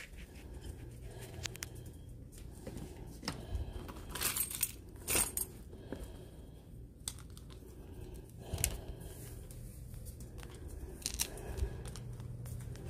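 Scattered small clicks, taps and rustles of a phone being handled and things being moved about, over a steady low hum; the sharpest clicks come about four to five seconds in and again near nine seconds.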